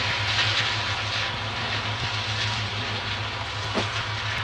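Combine harvester working in a corn field: a steady low engine drone with a hiss of machinery over it.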